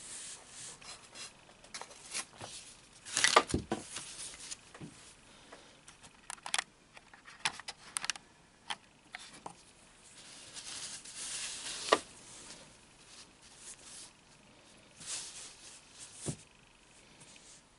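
Handling noise: a small stitched fabric piece and a card being picked up, turned over and laid down on a worktable, with soft rustles and scattered taps and clicks, the loudest knock about three seconds in.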